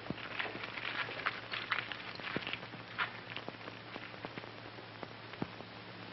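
Faint, irregular scuffing and clicking over a steady low hum.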